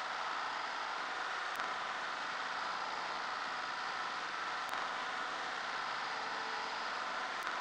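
Schaublin 13 milling machine running steadily, its spindle turning a roughing end mill over a small metal workpiece clamped in the vise.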